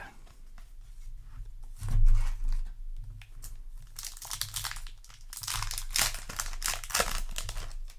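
Yu-Gi-Oh! booster pack's foil wrapper being torn open and crinkled, with a dull bump about two seconds in and dense crackly rustling over the second half.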